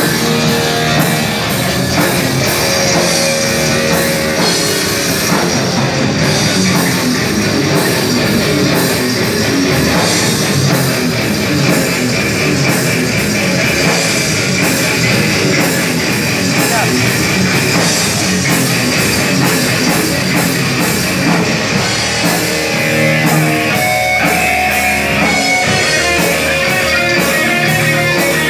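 Heavy metal band playing live: electric guitars, bass guitar and drum kit.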